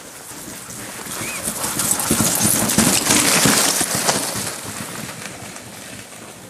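A small dog sled team passing close by on packed snow: the sled's runners hiss and the dogs' paws patter. It grows louder as it approaches, is loudest about three seconds in, then fades as it moves away.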